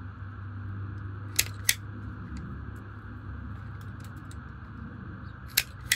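Automatic wire stripper clamping and stripping a wire: two pairs of sharp clicks, one pair about a second and a half in and another near the end, over a steady low hum.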